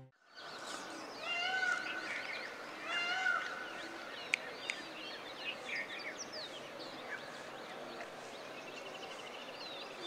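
Birds calling at dawn: many overlapping chirps and whistles, with two louder, longer pitched calls about one and a half and three seconds in, and a rapid even trill near the end.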